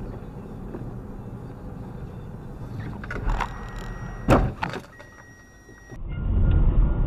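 Road noise inside a moving car, then a sharp bang about four seconds in as a car cutting across close in front is struck, with smaller knocks just before and after it. Near the end it gives way to a louder, steady low rumble of another car driving.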